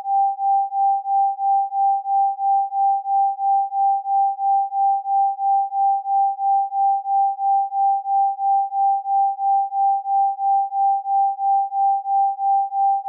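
Isochronic tone: a single steady mid-pitched sine tone pulsing evenly on and off, about three pulses a second.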